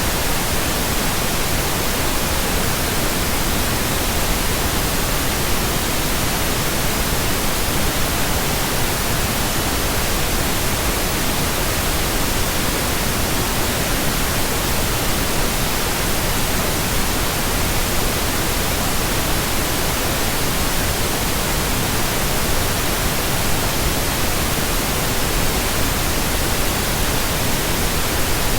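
Steady synthetic pink noise: an even hiss that does not change.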